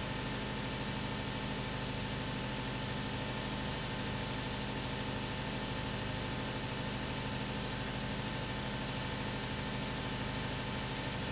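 Steady mechanical hum: a constant low drone with a hiss over it.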